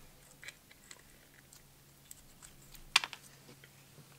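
Small, scattered clicks and ticks of a screwdriver, pliers and the plastic and metal parts of a small drill motor being handled during disassembly, with one sharper click about three seconds in.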